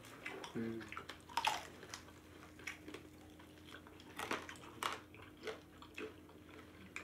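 Close, wet chewing and irregular crunches, about one a second, of people eating chicken with their hands, bones included, over a faint steady hum.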